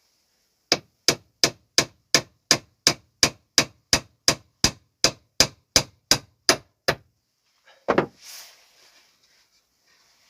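Hammer driving a nail into wood: about eighteen quick, even strikes, roughly three a second, then a single heavier knock about a second after they stop.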